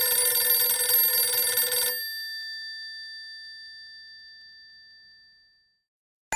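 Palm Pre smartphone playing a telephone-bell ringtone: a bright, dense ringing for about two seconds, then the bell tone slowly dying away.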